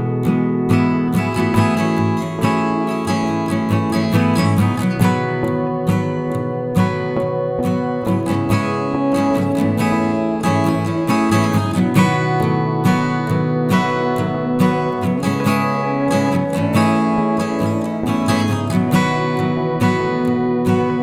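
Background music led by strummed acoustic guitar, steady throughout.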